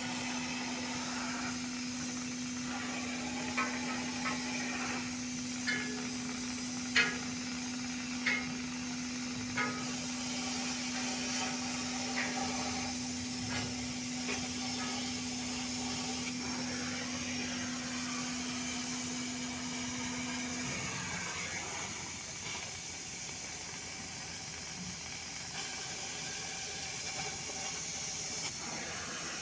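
Oxy-fuel gas cutting torch hissing steadily as it cuts through steel plate, with a handful of sharp pops and crackles between about four and ten seconds in. A steady low hum runs beneath and stops about two-thirds of the way through.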